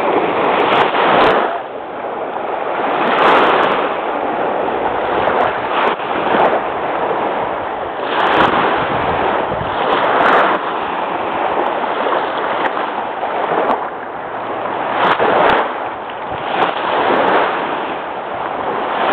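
Choppy Lake Michigan waves washing in, the rush of water swelling and fading every two to three seconds.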